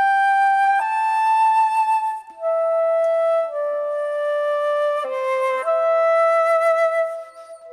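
Sampled flute from a Soundpaint virtual instrument playing a slow melody of long held notes, moving to a new note every second or so, with a short break between phrases near the end.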